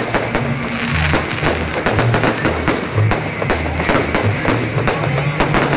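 A fireworks salute: shells and crackling stars bursting in quick, irregular succession, many bangs a second. Music with a bass line plays under the bangs.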